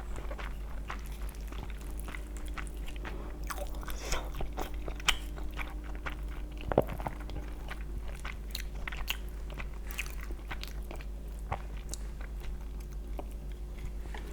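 A person chewing and biting food close to the microphone, with a run of short crunches and a few louder bites about four, five and seven seconds in.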